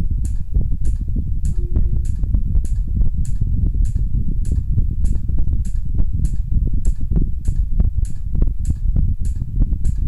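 Electric pedestal fan cycled by an Omron timer relay, the relay clicking sharply and evenly about every 0.6 seconds as it switches the fan's power half a second on and a tenth of a second off. Under the clicks runs a loud, steady low rumble of the spinning fan and its air close in front.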